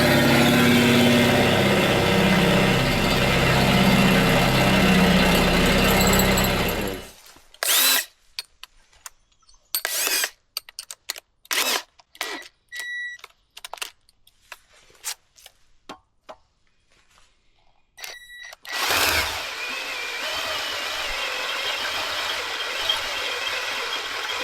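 A loud motor runs with a steady low hum and cuts off suddenly about seven seconds in. Scattered knocks and clicks follow, then a quieter steady machine noise starts a few seconds before the end.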